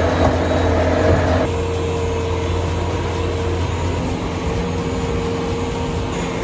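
Skid steer engine running steadily, easing off slightly about a second and a half in.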